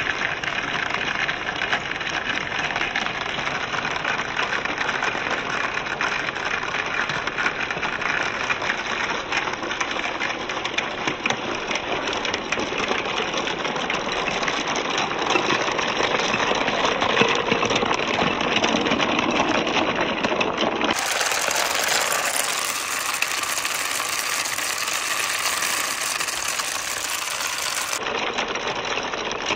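Water running down a wooden marble run while marbles roll and clatter along the wooden track, making a steady, dense rattle.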